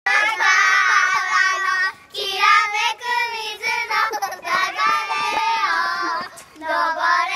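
A group of young children singing together in high voices, in sung phrases of held notes with brief pauses about two seconds in and near the end.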